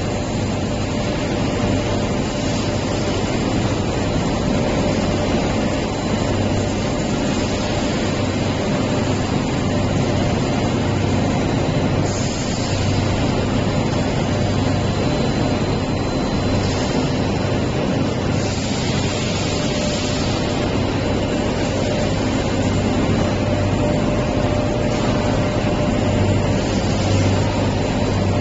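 Steady, loud drone of a 4500-ton fibre cement board pressing machine at work, with a deep hum underneath. A higher hiss comes up twice around the middle.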